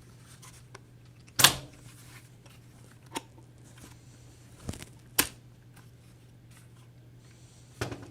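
Sharp knocks and clunks of the SENCO EVOLVE finish nailer's sleeve being forced by hand into its pressure vessel: five short knocks, the loudest about a second and a half in, over a low steady hum.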